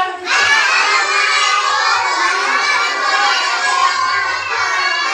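A group of young children's voices all at once, shouting and chattering together in a loud, dense hubbub.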